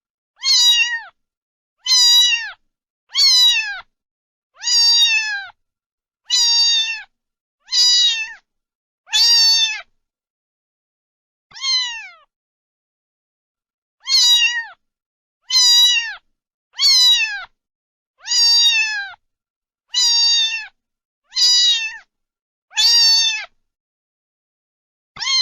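A cat meowing over and over, about sixteen short meows, each falling in pitch, separated by silent gaps, with a longer pause near the middle.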